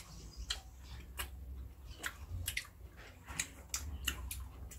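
Fresh lychees being peeled and eaten: irregular sharp clicks and smacks of shells cracking and of the fruit being chewed and sucked, several a second.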